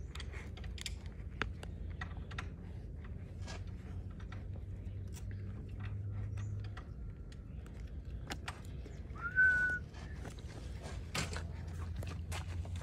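Soft handling noises of a vinyl graphic decal being pressed and smoothed onto a dirt bike's plastic number plate: scattered light taps, rubs and paper rustles, over a low steady hum. About nine seconds in, a single short whistle rises and then holds briefly.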